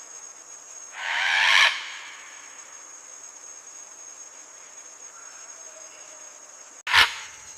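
Steady high-pitched insect drone, like crickets. Two loud, harsh sounds cut across it: one swells for under a second about a second in, and one starts abruptly near the end.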